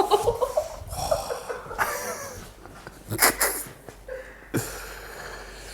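A person laughing breathily and letting out heavy exhales of relief during a chiropractic adjustment. There are two short sharp sounds, a little past three seconds in and again about a second later, and one long breath out near the end.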